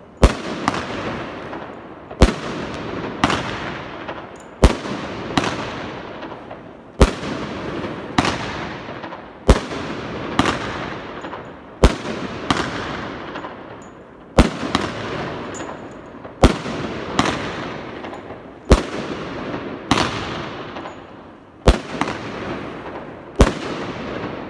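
Gemstone Fireworks 'Bullfighter' multi-shot firework cake firing shot after shot: a sharp bang every one to two seconds, each trailing off before the next.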